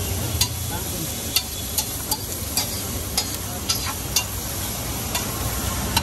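Metal spatula scraping and clinking against a large flat tawa griddle as a big heap of chopped onions is tossed and spread. Sharp clinks come irregularly, roughly two a second, over a steady sizzling hiss and a low rumble.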